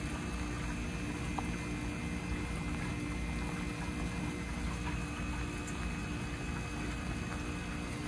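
Bryant Preferred Series heat pump outdoor unit running through its defrost cycle: a steady hum with several fixed tones over an even hiss, with a few faint ticks.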